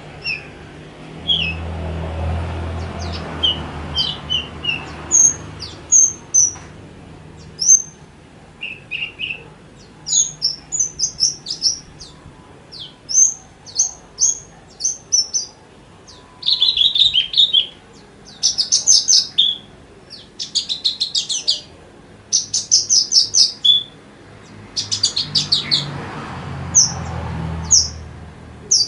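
Javan bush lark (branjangan) singing: a run of short high chirps and whistled notes, turning after about sixteen seconds into fast rattling trills in bursts of a second or two. A low rumble lies under the song near the start and again near the end.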